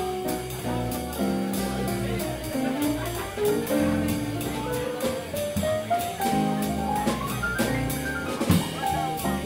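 Jazz combo of piano, bass and drums playing an instrumental swing passage with no vocals. Piano chords and a line of single notes climb steadily through the second half, over bass and regular cymbal strokes.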